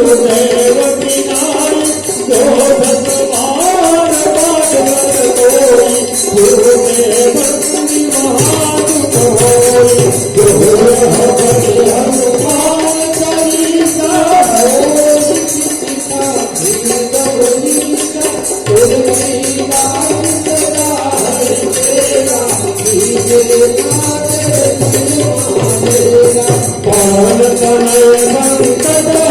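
Devotional bhajan music: a continuous melody over steady, rhythmic jingling hand percussion.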